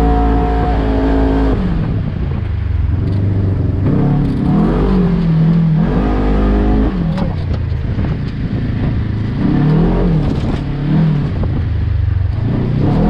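Side-by-side off-road buggy engine, heard from the cockpit, revving up and dropping back again and again as the throttle is worked over a bumpy track. A few sharp knocks come about halfway through.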